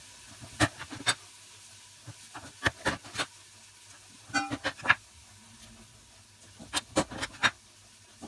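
Raw chicken drumsticks and a santoku knife knocking on a wooden cutting board in four short clusters of taps, one with a brief ringing tone, as the drumsticks are set down and the knife is picked up.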